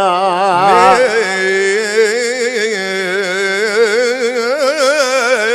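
Male folk poet singing a mawwal, holding one long ornamented note whose pitch wavers and turns throughout, over a steady held drone note.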